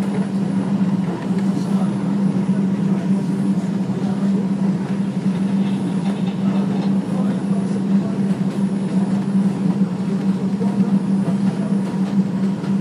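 R142 subway car running at speed on elevated track, heard from inside the car: a steady rumble of wheels on rail with a constant hum.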